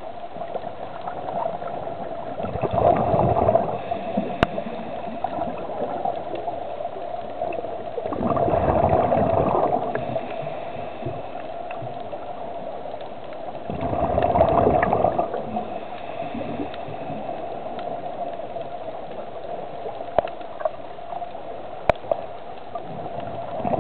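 Scuba diver's exhaled regulator bubbles gurgling past the underwater camera in three rushes, about every five to six seconds, each lasting a second or two. A steady hum runs underneath, with scattered sharp clicks toward the end.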